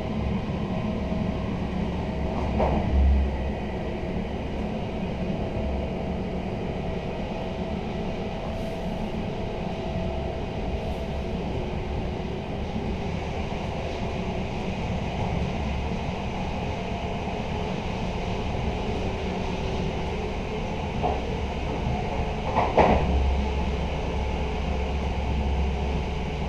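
Running noise inside a passenger coach of a TRAXX-hauled Intercity train: a steady rumble of wheels on rail. It swells briefly with a knock about three seconds in, and again with heavier knocks a few seconds before the end.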